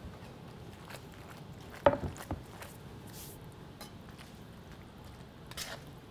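A few scattered clinks and knocks of metal tongs and a stainless skillet as sauced pasta is tossed and lifted in the pan, the sharpest knock about two seconds in.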